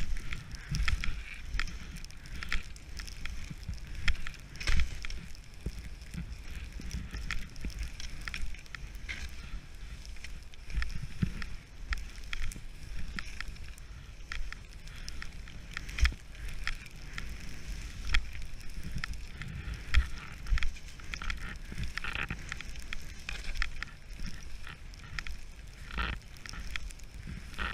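Skis hissing and scraping over soft, tracked-up snow during a downhill run, with irregular crackles and heavier knocks over bumps. A low rumble of wind buffets the camera microphone.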